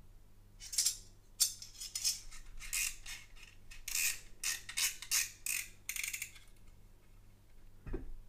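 Olfa H1 utility knife's steel saw blade being slid back into its plastic body, with an irregular string of metallic clicks and scrapes for several seconds, then a dull knock near the end as the knife is set down on the table.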